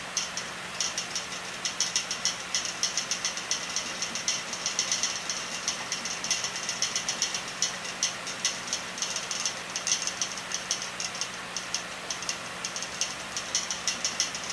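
Wooden whirligig propeller spinning in the airflow of an electric fan, giving rapid, irregular clicking and rattling, over the fan's steady rush and low motor hum.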